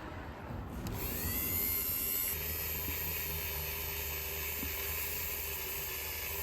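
A small electric power tool spinning up with a rising whine about a second in, then running steadily at speed.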